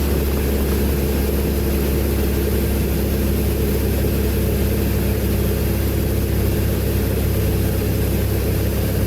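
Glastar light aircraft's piston engine and propeller droning steadily in flight, a constant low hum with no change in pitch or level.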